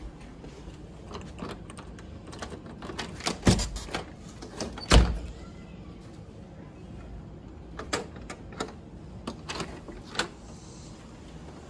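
Clicks and knocks of a balcony door being unlocked and opened, its latch and frame handled, with the two loudest knocks about three and a half and five seconds in.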